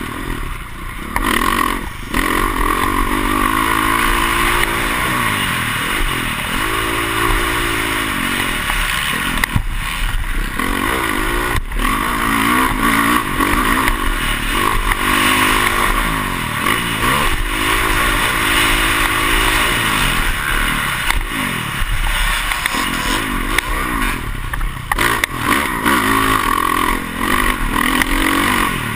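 Motocross dirt bike engine heard from an onboard camera, revving up and down over and over as the throttle is worked around the track.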